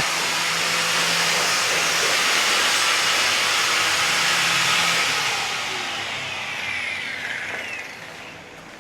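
A machine or power tool running with a loud steady hiss, then fading away over the last few seconds with a falling whine as it winds down.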